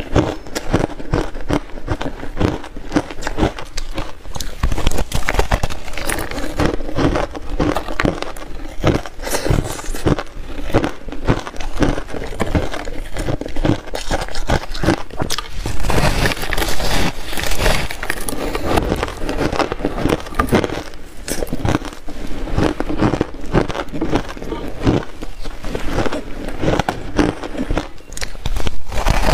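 Close-miked biting and chewing of a block of shaved buckwheat ice: a dense, continuous run of crisp crackling crunches, heaviest a little past halfway through.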